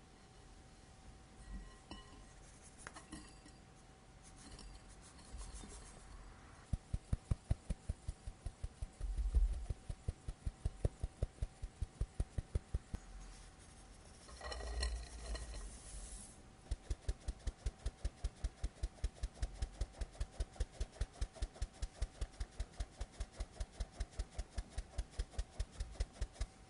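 Fine stainless-steel mesh sieve shaken against the rim of a glass bowl, ticking in a steady rhythm of about five taps a second as almond flour and powdered sugar are sifted. Midway there is a short rush as powdered sugar is poured into the sieve, and then the ticking starts again.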